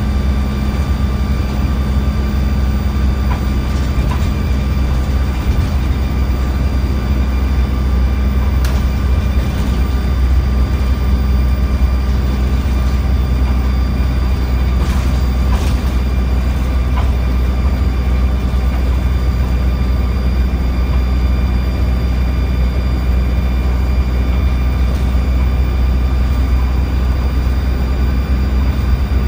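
Dennis Dart single-deck bus on the move, heard from inside the passenger saloon: a steady low engine drone with road noise and a faint steady whine, and a few faint clicks.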